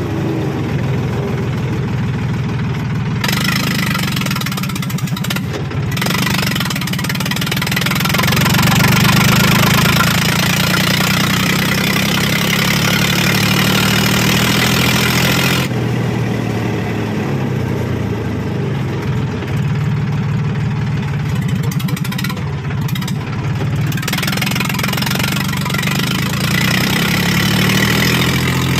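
Mahindra tractor's diesel engine running with its silencer removed, a loud open-exhaust note steady under load as the tractor drives along, getting a little louder about eight seconds in.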